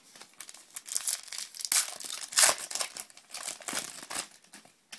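Trading-card pack wrapper crinkling and tearing as it is opened by hand: a dense run of irregular crackles, loudest about halfway through.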